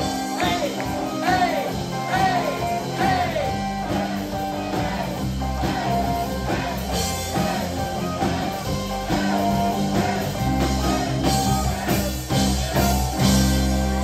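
Live rock band playing: distorted electric guitars, bass guitar and drums, with a vocalist singing over them.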